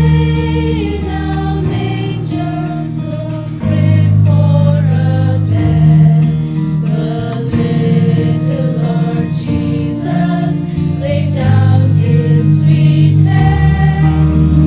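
Choir singing a Christmas cantata song over instrumental accompaniment with sustained bass notes.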